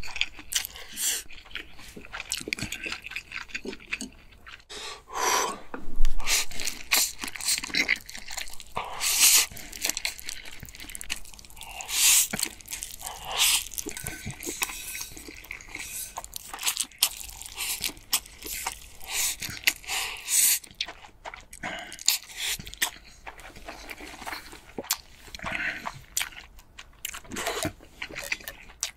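Close-miked slurping and chewing of spicy stir-fried instant noodles (Buldak fire noodles): quick wet slurps and chewing, one after another at an irregular pace.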